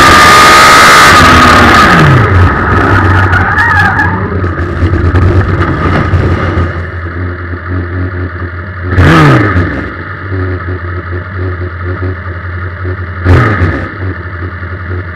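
Suzuki Hayabusa inline-four motorcycle engine in a small race car, running loud at high revs, then its revs falling away within the first couple of seconds as the car runs off into a gravel trap, with scattered clatter of gravel. It then idles with the car at rest, blipped twice, about two-thirds of the way through and near the end.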